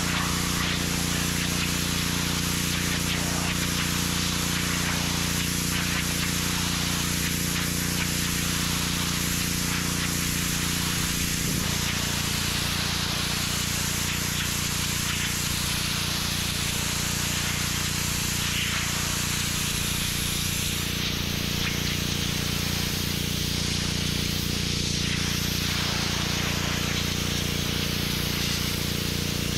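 Gas-engine pressure washer running steadily, with the constant hiss of its high-pressure water spray on brick paving. The engine note shifts slightly about twelve seconds in.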